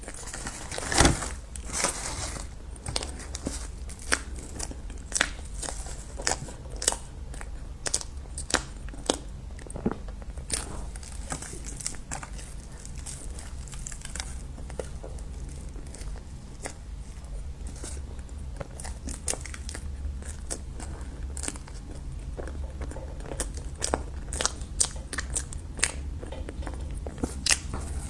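Close-miked eating: repeated bites and chewing with many sharp, irregular clicks and smacks, over a steady low hum.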